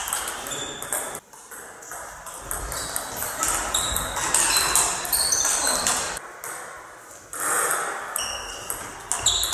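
Table tennis doubles rally: the celluloid-type ball clicks in quick succession off the rackets and the table, with a short pause between rallies partway through.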